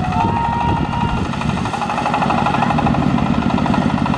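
Small engine running steadily with a fast, even chugging.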